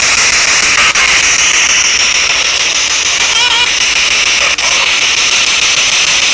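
Ghost box sweeping through radio stations: a loud, steady hiss of static broken by a few sharp clicks as it jumps between stations, with a brief wavering snatch of sound about three and a half seconds in.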